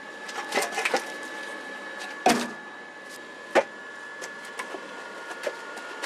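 Split firewood logs knocking and clattering against the firebox of a wood-fired boiler as they are loaded in. Light knocks come in the first second, the loudest thud about two seconds in, another sharp knock a second later, then a few faint ticks.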